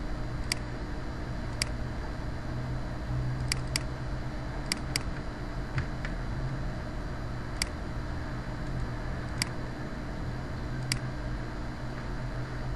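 Computer mouse buttons clicking, about ten short sharp clicks with two quick double-clicks, over a steady background hum and hiss.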